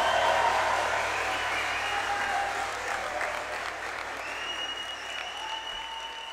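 Applause from audience and performers at the end of a song, slowly dying away.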